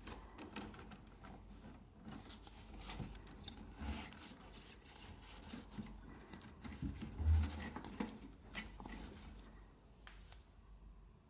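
Irregular rustling, rubbing and clicking handling sounds, with two dull thumps, the louder one about seven seconds in.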